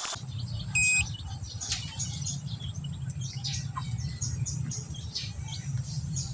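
Multimeter on continuity setting giving one short steady beep about a second in, signalling a closed circuit through the part being tested. Birds chirp throughout over a steady low hum.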